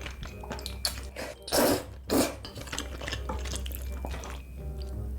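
Close-miked eating: utensils clicking and scraping against a dish, with two loud, short noisy bursts a little past the middle.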